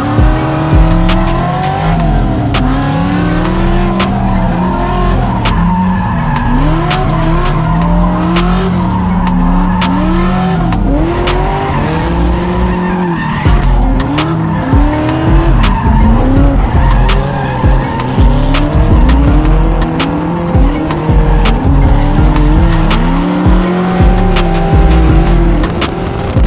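Drift car engine revved hard over and over, its pitch climbing and dropping back about once a second, with tyres squealing as the cars slide.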